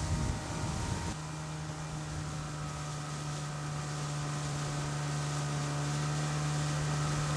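Jet ski engine running at speed across open water: a steady droning hum that grows slightly louder. Wind buffets the microphone in the first second.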